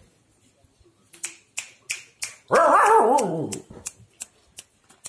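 Husky puppy giving one loud, wavering howl, a little over a second long, that drops in pitch as it ends, between a series of sharp clicks.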